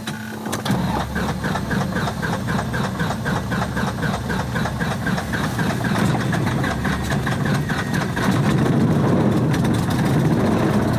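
Light aircraft's propeller engine running, heard from inside the cabin; it gets louder about eight seconds in.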